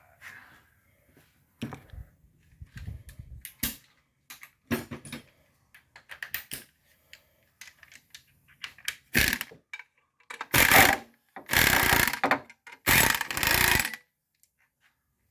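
Metal tools and parts clinking and clanking, then a power tool running in four short loud bursts near the end, as bolts are worked off the engine.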